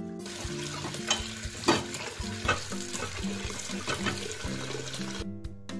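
Tap water running into a steel plate as a hand rubs and swishes soaked dried Bombay duck pieces to wash the sand out, with a few sharp clinks against the metal. The water stops shortly before the end, leaving steady background music.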